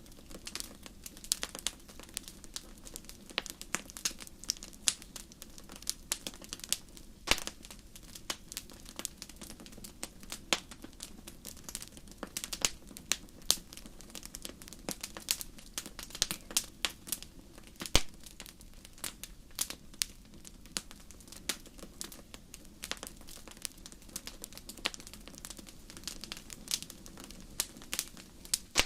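Wood fire crackling in a fireplace: irregular sharp pops and snaps, several a second, over a low steady hiss of the flames.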